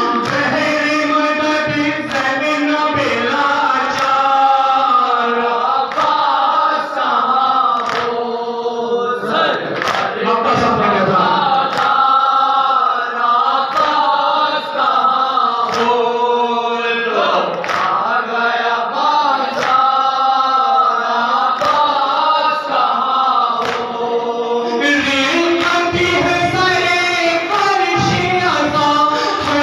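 A group of men chanting a noha, a Shia lament, in unison with a lead reciter, over a steady rhythmic beat of hands striking chests (matam).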